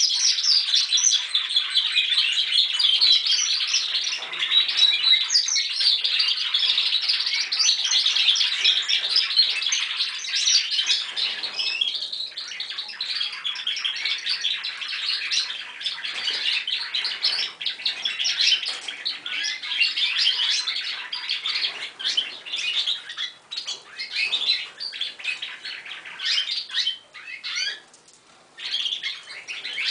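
Several young timbrado canaries (Spanish singing canary breed) practising their song together: a dense, continuous warbling and chirping that thins into separate phrases with gaps in the last several seconds.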